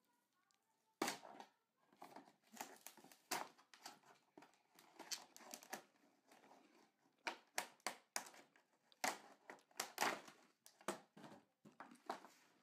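Doll box packaging being torn and pulled open by hand: irregular crinkling, rustling and ripping, starting about a second in.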